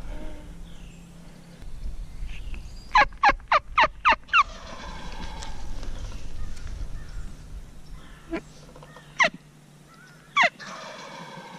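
Turkey yelping: a quick run of six sharp yelps, each dropping in pitch. Three single yelps follow, spaced a second or more apart.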